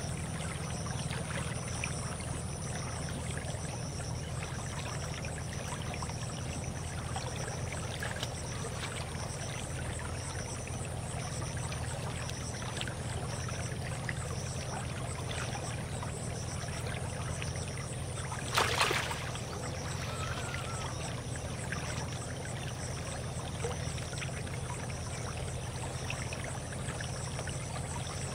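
Shallow field-canal stream flowing and trickling steadily, with a faint high pulsing sound repeating about once a second. A brief louder noise cuts in about two-thirds of the way through.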